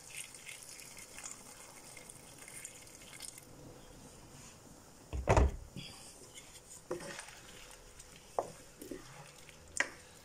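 Water being poured into a pan of cooking chilli ingredients, with a loud low thump about five seconds in and a few light clicks after it.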